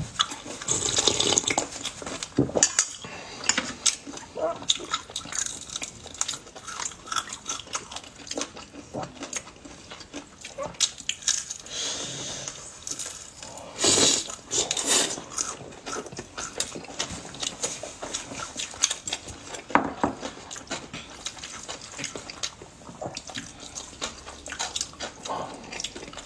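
Close-up eating sounds: wet slurping of soup and black bean noodles, chewing and lip smacks, irregular and uneven, with a few louder slurps.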